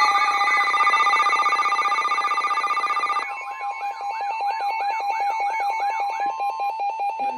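Emergency Alert System alert tones announcing a severe thunderstorm warning. A steady electronic multi-tone alarm plays for about three seconds, then changes to a rapidly pulsing tone with a repeating warbling sweep over it.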